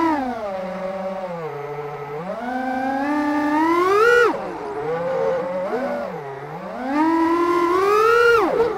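FPV quadcopter's brushless motors and propellers whining, heard from the onboard camera, the pitch following the throttle. The whine falls over the first second, climbs to a peak about four seconds in, drops sharply, then climbs again before a steep drop near the end.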